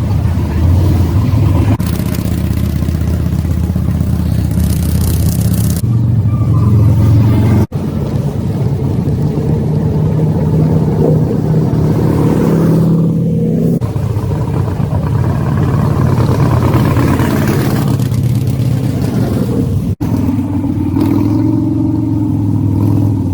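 Motorcycle engine running at speed, its pitch rising and falling with the throttle, with a couple of brief breaks where the footage is cut.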